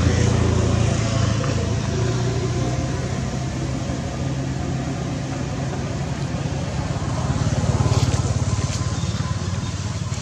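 An engine running steadily with a low hum, swelling slightly about eight seconds in, with a couple of faint clicks.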